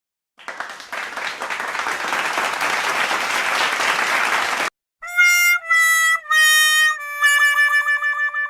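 A few seconds of clapping-like noise that cuts off abruptly. It is followed by the 'sad trombone' comedy effect: three short brass notes stepping down in pitch, then a long low note that wavers.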